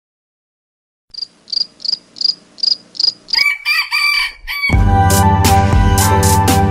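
Cricket chirping, seven short high chirps about three a second, followed by a single rooster crow; loud music with a steady drum beat starts right after the crow.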